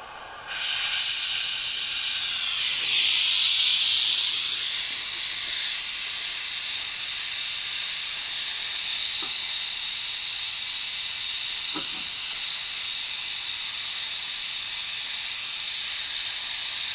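Gas torch flame hissing steadily as it heats a rust-seized bolt joining a turbocharger to its exhaust manifold, to loosen the rust in the threads. The hiss starts about half a second in and swells louder for a moment around three to four seconds before settling.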